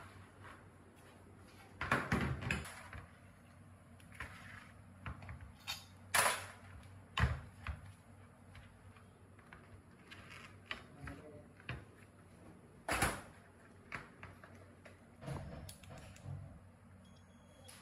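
Scattered knocks and clunks as an old flour mill's electric motor and its rusty steel stand are handled and shifted on a workbench, about half a dozen separate impacts. The loudest come about six seconds in and again near thirteen seconds.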